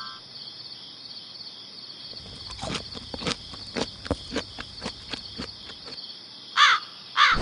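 Crickets chirping steadily, with a run of light taps like small footsteps from about two seconds in until about six seconds. Two short, sweeping chirps come near the end.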